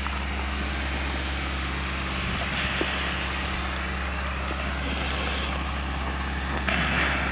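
Steady low mechanical rumble, like a running engine. Over it comes a soft scraping as a plastic spatula stirs liquid casting compound in a paper bowl, about two and a half seconds in and again near the end.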